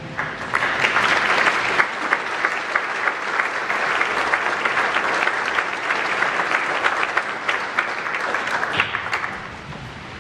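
Audience applauding: a dense, sustained run of clapping that starts right after a final musical note and dies away near the end.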